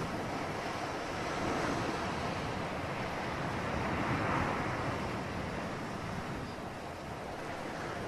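Ocean surf: a continuous rush of waves breaking and washing ashore, swelling louder near the middle and easing near the end.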